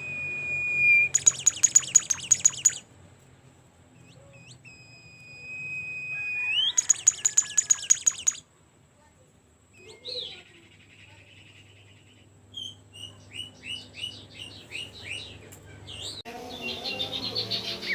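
A songbird in full song: a long held whistle rising at its end, then a loud rapid run of repeated notes, twice over; then quieter varied chirps and short notes, and a denser, faster burst of song near the end.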